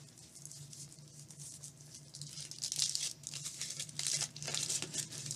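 Foil wrapper of a chocolate egg being peeled and crinkled by hand, quiet at first and turning into a dense, louder crackle about two seconds in.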